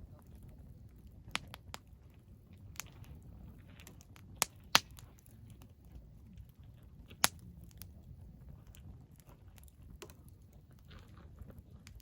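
Firewood burning in a fire pit, crackling softly with scattered sharp pops, the loudest two about five and seven seconds in.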